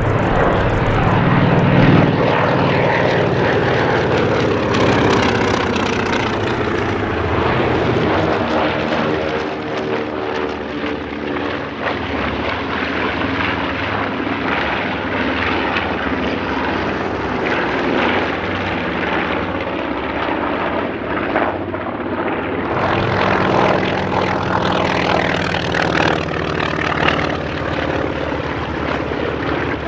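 Propeller warbirds' radial piston engines running on low flying passes, a steady loud drone. A few seconds in the pitch falls as one aircraft goes by, and the engine sound changes to another aircraft's about three-quarters of the way through.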